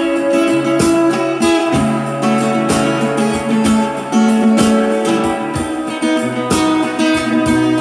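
Guitar music: plucked guitar notes over held chords and a moving bass line.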